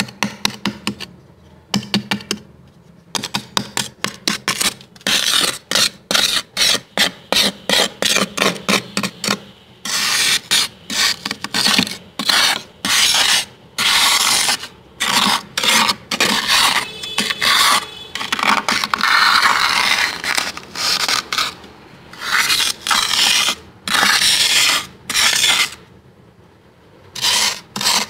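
Thick freezer frost being scraped in rapid strokes, several a second, with a longer unbroken scrape past the middle and brief pauses near the start and near the end.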